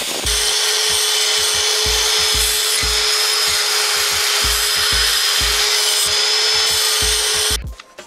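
Electric hand drill boring through a metal bracket plate: a steady motor whine with hissy cutting noise, stopping suddenly near the end.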